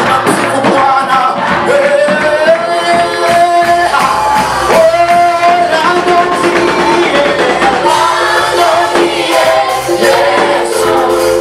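Live Swahili church praise song: voices singing a sustained melody over a band with a steady beat.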